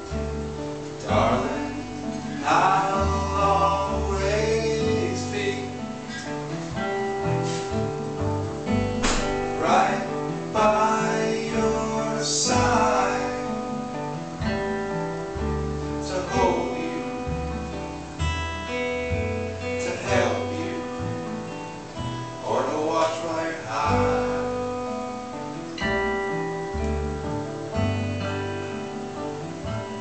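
Live acoustic string band playing: two acoustic guitars strummed and picked over an upright double bass, with chords struck every few seconds.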